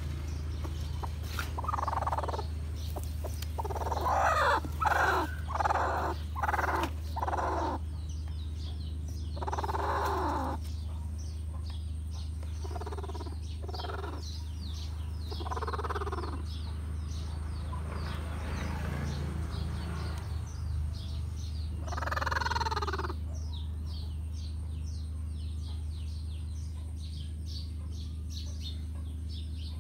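Chicken calling: a quick run of about six clucks, then a longer call falling in pitch, with a few single calls later, over a steady low hum.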